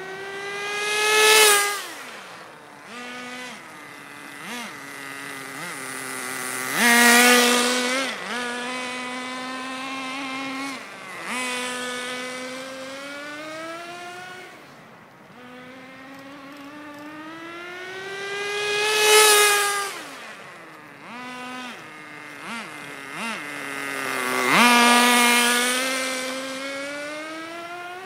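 Nitro RC car's small two-stroke glow engine running past four times at high speed. On each pass the engine note rises in pitch and loudness as the car comes in, then drops sharply as it goes by. Between passes the note rises and falls with short throttle blips as the car runs farther off.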